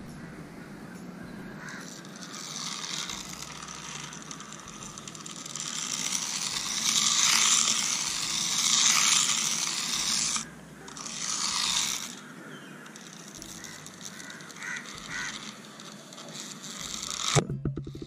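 Tiny 1:64-scale remote-control car's small electric motor and gears whirring, its tyres rasping over rough concrete. It comes in bursts that build up, stop suddenly about ten seconds in, start again briefly, then fade.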